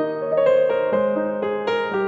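Background piano music: a slow melody of held notes, a new note or chord coming in about every half second.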